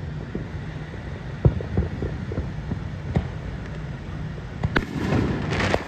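Aerial fireworks shells bursting at a distance: several low booms a second or so apart over a steady low rumble, with a louder hissing, crackling stretch near the end.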